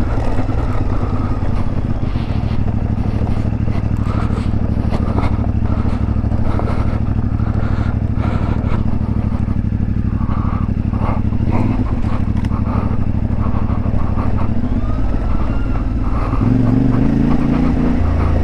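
CFMoto 450MT's 270-degree parallel-twin engine running at low revs while the bike rides over rocky ground, with scattered knocks and clatter. Near the end the engine revs up and gets louder.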